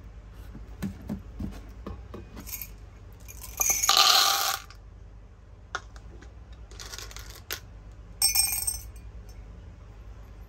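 Hard candies clinking and rattling in several short bursts, the loudest lasting about a second, with small scattered clicks between.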